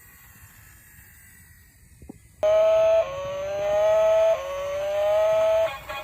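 Battery-powered toy vehicle's electronic sound effect: a click, then a loud buzzy tone that holds briefly and then slides upward in pitch twice, like a toy siren.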